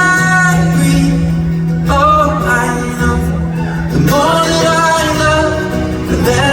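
Live acoustic pop music: a male voice sings long held notes over a steady acoustic guitar accompaniment.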